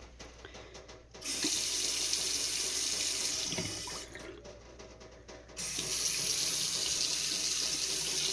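Water running from a newly replaced faucet into a sink. It is turned on about a second in, shut off about four seconds in, and turned on again near six seconds.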